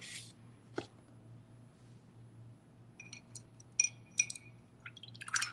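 A few light clinks and taps of hard objects on a painting table, a couple of them with a brief glassy ring, then a short rustle near the end.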